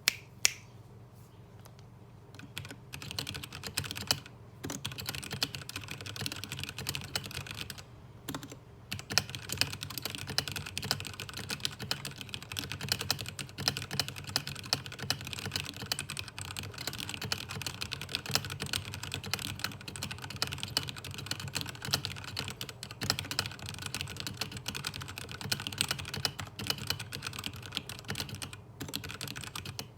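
Royal Kludge RK855 mechanical keyboard with stock RK Red linear switches and no case foam, typed on in fast continuous keystrokes, with two short pauses early on. Two sharp clicks sound right at the start, before the typing begins a few seconds in.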